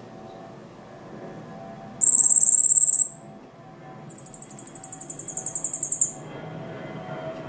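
Silil singing two very high trills: a steady buzzy one lasting about a second, then after a short pause a pulsed trill of about ten notes a second lasting some two seconds.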